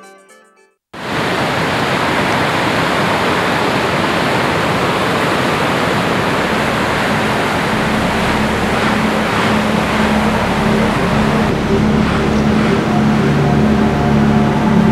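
Rough sea surf washing onto a stony shore: a steady rushing noise that starts suddenly about a second in, after a brief silence. Low, sustained music notes join in about twelve seconds in.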